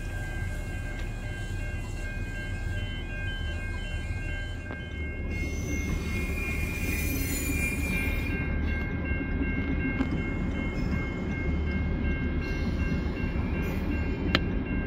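A train on the move: a steady low rumble with faint, steady high squealing tones above it, and a hiss for a couple of seconds about six seconds in.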